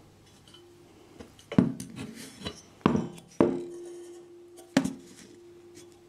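Metal parts of an old medical microwave emitter being handled on a table: four sharp metallic clanks. After the third one a clear metallic ring hangs on for about two seconds.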